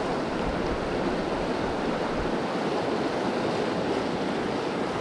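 Steady rush of flowing river water, with uneven wind buffeting on the microphone.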